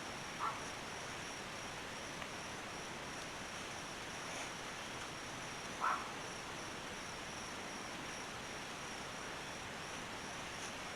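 Outdoor insect chorus, a steady high-pitched buzz of crickets over a background hiss. Two brief calls stand out, a faint one about half a second in and a louder one near six seconds.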